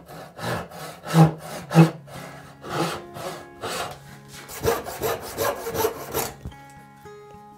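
Hand back saw crosscutting a wooden board, with a rasping stroke about every second that quickens to two or three a second near the end. The sawing stops about six seconds in.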